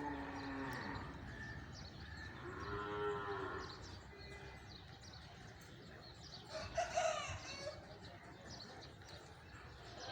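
Cow mooing: one drawn-out call that arches up and down in pitch about three seconds in, and a louder, shorter sound about seven seconds in.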